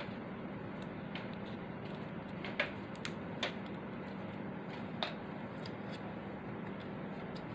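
Light clicks of cardboard punch-out pieces being fitted together by hand, three sharp ones a second or so apart near the middle, over a steady low hum.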